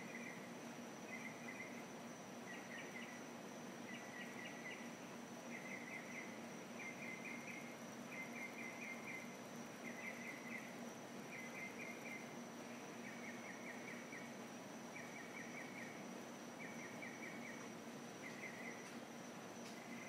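Northern mockingbird singing at night: short phrases of quick repeated notes, about one a second, each phrase type given a few times before it switches to another. A steady high-pitched whine runs underneath.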